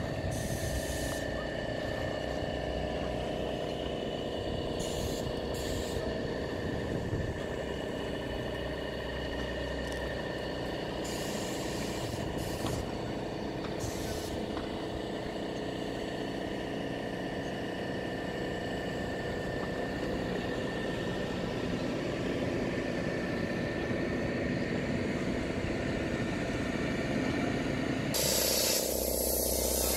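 Steady hum of an idling engine or machinery, with a faint steady whine over a low rumble. A loud hiss starts near the end.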